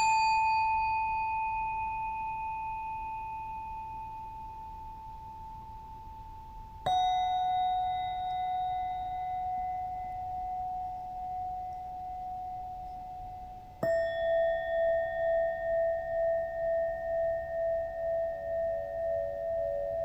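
Singing bowls struck three times, about seven seconds apart, each a lower note than the one before and each ringing on and slowly fading. The last tone wavers in a steady pulse of about two beats a second that swells toward the end.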